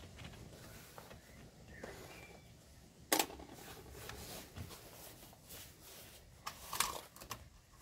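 Hands working a radiator coolant hose and its fittings: rustling and light knocks, with one sharp click about three seconds in and a few more clicks near the end.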